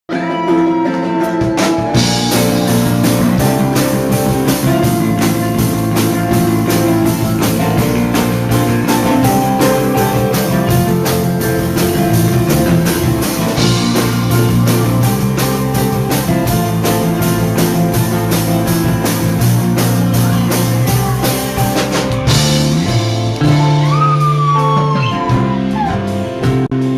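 Live rock band playing an instrumental passage: guitar over a steady drum-kit beat. The drums come in about two seconds in, and a sliding guitar note rises and falls near the end.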